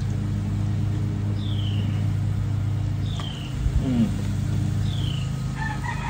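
Steady low roar of the propane burner under a cast-iron pot of frying oil. Over it a bird gives a short falling call three times, about every second and a half to two seconds, and a brief lower sliding sound comes about four seconds in.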